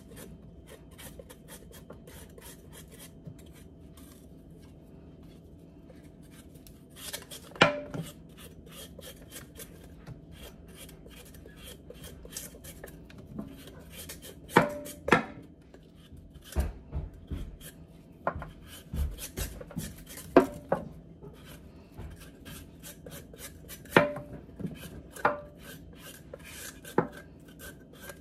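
Kitchen knife paring the skin off an eddo (taro corm) in quick repeated scraping strokes, with a number of sharper clicks from the blade every few seconds.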